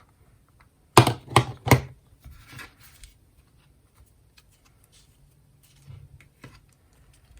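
Hands handling the album's packaging and paper inserts: three loud, sharp handling sounds about a second in, then softer rustling and a few small clicks.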